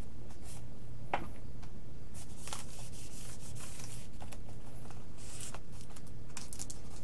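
Faint rustling and rubbing of fingers pressing and smoothing a vinyl decal onto a foam RC airplane wing, with a few soft ticks, over a steady low hum.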